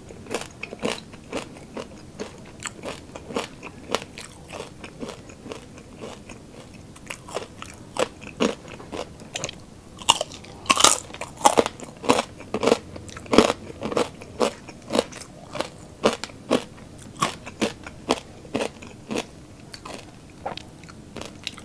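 Close-up crunching and chewing of crispy lechon kawali (deep-fried pork belly) with its crackling skin: a steady run of sharp crunches, about one to two a second, loudest around the middle.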